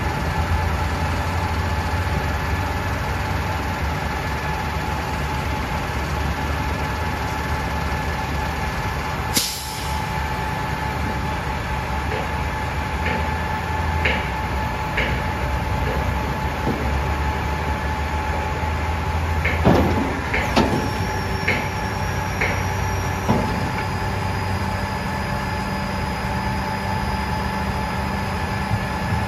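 Vacuum truck running steadily with a constant whine while its Vactor Guzzler debris tank is raised on the hydraulic hoist. A sharp click comes about nine seconds in. A cluster of clicks and knocks comes around twenty seconds in, after which a higher thin whine joins.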